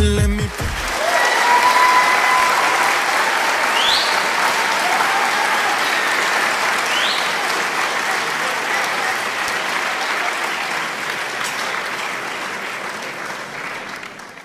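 Large theatre audience applauding, with a couple of short rising whistles from the crowd; the applause dies away near the end.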